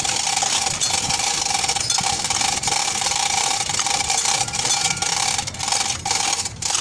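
A workshop tool running steadily with a hiss and a constant mid-pitched whine, cutting out briefly a few times near the end.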